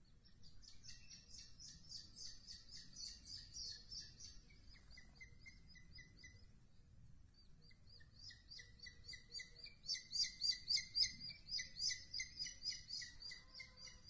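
Booted eagle chick begging with a rapid series of thin, high chirps, about four a second, in two runs. The first run fades around six seconds in, and the second starts a moment later, louder, peaking around ten to twelve seconds.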